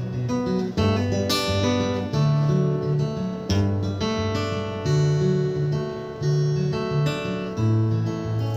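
Solo acoustic guitar playing an instrumental passage between sung verses: picked chords ringing over a steady bass line that alternates between two low notes, recorded through a phone's microphone.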